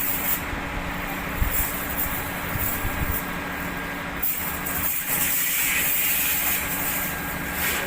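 Sawmill machinery running: a steady engine drone with a hiss that swells and fades over it.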